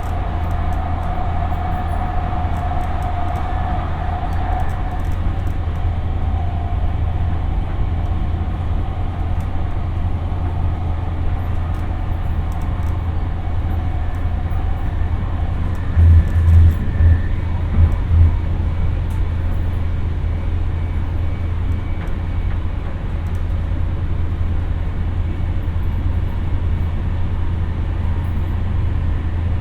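Siemens P2000 light rail car running between stations, heard from inside the car: a steady low rumble of wheels on rail. A whine fades out over the first few seconds, and a short cluster of heavier low thumps comes about halfway through.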